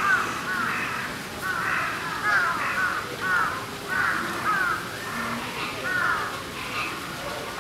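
Birds calling: short, arched cries that come in quick clusters about once a second.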